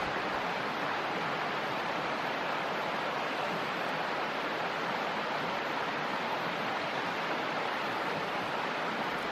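Small stream running over stones: a steady, even rush of water.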